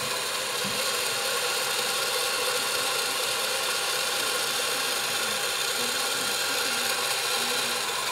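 Small motorized egg-spinning decorator running steadily, its motor whirring as it turns an egg for painting.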